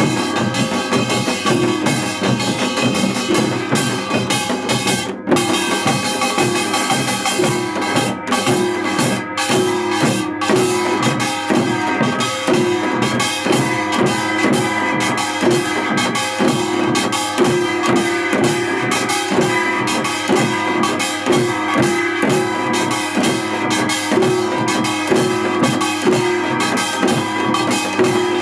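Music with a drum kit keeping a steady beat, with a few brief breaks about five to ten seconds in.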